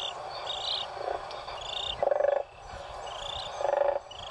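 Whooping crane chick peeping in short high notes, roughly once a second. A lower, rattling brood call sounds twice, about two seconds in and near the end; it is the calming call that chicks take as a cue to settle.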